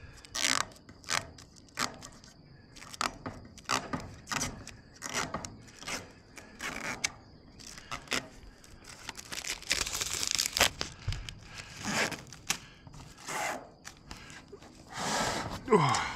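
Protective plastic film being peeled off a metal ridge flashing: an irregular run of crackling, tearing strokes.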